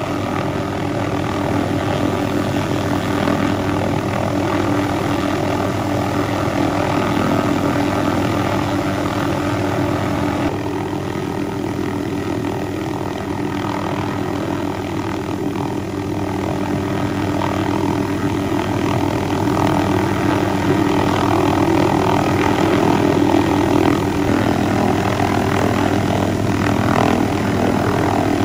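Light helicopter hovering close by: a steady rotor chop over the drone of its engine, growing a little louder in the second half.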